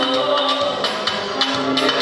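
Dance music with pitched instruments over a steady percussion beat.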